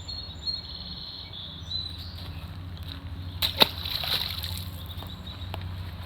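A sharp splash in the water about three and a half seconds in, with birds chirping.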